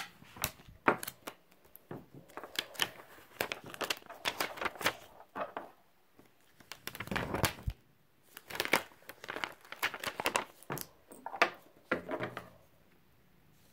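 Excess heat transfer vinyl being weeded: peeled off its clear plastic carrier sheet with irregular crackling and crinkling. A longer tearing rasp comes about seven seconds in.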